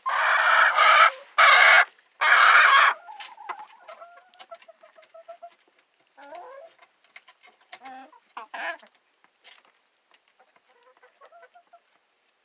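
Domestic hens clucking. A few loud, harsh bursts come in the first three seconds, followed by softer trills and clucks.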